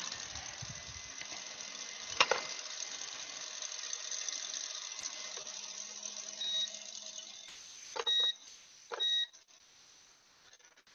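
Electric stand mixer running with a steady whir as it whips egg whites and sugar for a souffle meringue, not yet at full stiffness; the whir fades out about seven seconds in. A sharp click comes about two seconds in, and three short electronic beeps come near the end.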